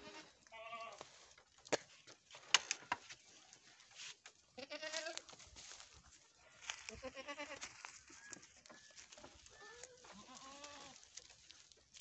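Goats bleating: about five separate bleats, one every two or three seconds, some short and some drawn out. There are a few sharp clicks in the first few seconds.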